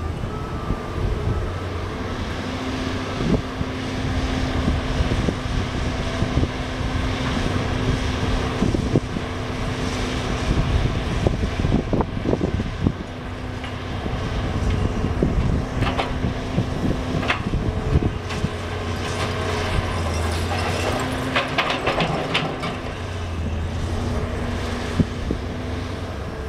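Hydraulic excavator's diesel engine running, swelling and easing several times as the machine works. Scattered knocks and clatters of demolition debris being grabbed and dropped sound over it, more often near the end.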